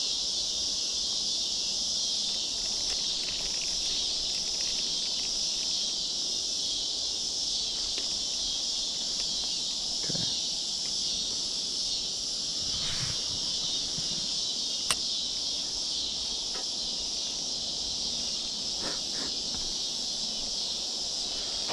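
Steady high-pitched insect chorus, with a few faint knocks and one sharp click about fifteen seconds in.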